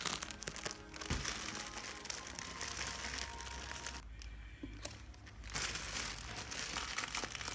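Plastic bread bag crinkling as a sliced loaf is handled and the bag opened, breaking off briefly about halfway through, over background music.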